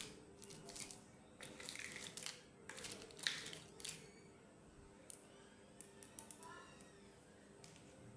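Unboxing and handling of miniature toys: a few short rustling, crinkling bursts of packaging in the first four seconds, then scattered light clicks and taps of small pieces.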